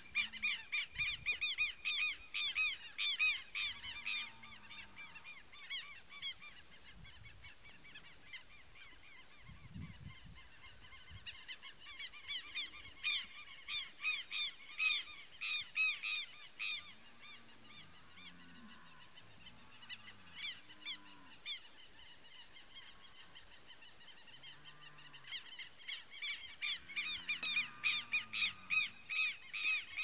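Southern lapwings (quero-quero) calling: loud, rapid, repeated strident calls that come in bouts at the start, in the middle and again near the end, with fainter calls in between.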